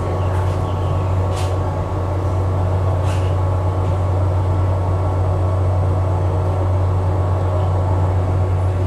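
A steady, loud low hum like a machine running, with two brief swishes in the first few seconds.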